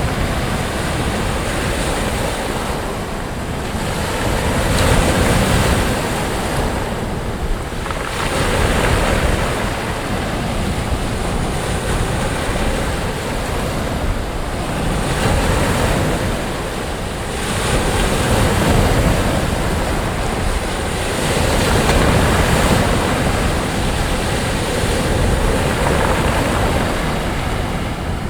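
Surf breaking and washing up a sandy beach, a continuous rush that swells and eases with each wave every few seconds.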